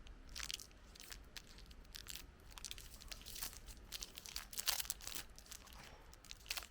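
Crunchy chewing of a KitKat chocolate-coated wafer bar, close to the microphone: many small, irregular crunches.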